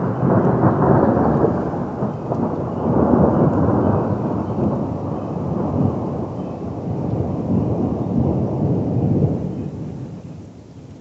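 A thunderclap breaks suddenly and loud, then rolls on in uneven rumbles for about nine seconds before fading out near the end.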